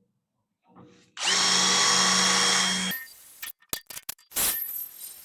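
Handheld electric drill boring a 3/8-inch hole through an aluminum bumper: a steady motor whine with a few steady tones for about two seconds, then the drill stops and starts in several short bursts.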